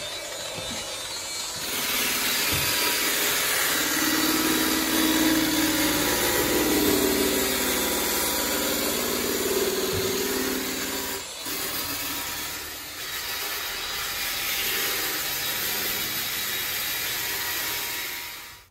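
Handheld Makita electric sanders working the painted sheet-metal ceiling of a bus, including a sander-polisher with a cup brush. The motor whines steadily over an abrasive hiss, and the sound changes abruptly about 11 seconds in.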